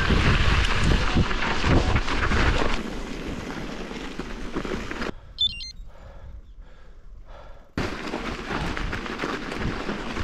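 Wind buffeting the camera microphone over the rumble of a mountain bike rolling along a snowy forest road. About five seconds in the noise cuts out to a much quieter stretch of a couple of seconds with one brief high chirp, then the riding noise returns suddenly.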